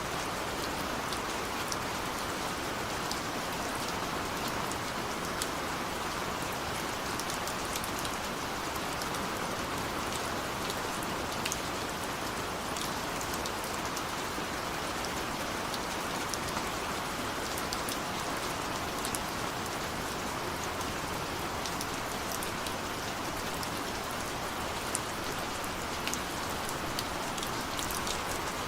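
Steady rain falling on a window, with a constant hiss and the light ticks of single drops striking the glass.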